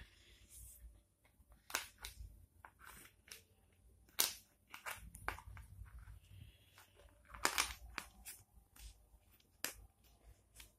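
Wooden tetromino puzzle pieces clicking and knocking against each other and the wooden tray as they are fitted in: a dozen or so irregular light knocks, with two louder ones about four and seven and a half seconds in.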